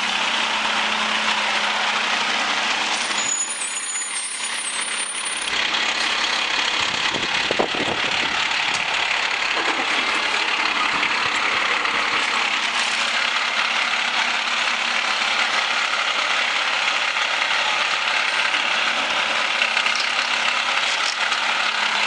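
Mack MRU garbage truck with a Leach rear-load body running steadily, with a brief high-pitched squeal about three seconds in.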